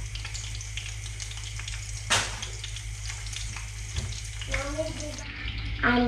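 Food shallow-frying in hot oil in a frying pan, sizzling with a steady fine crackle and one sharp louder crack about two seconds in.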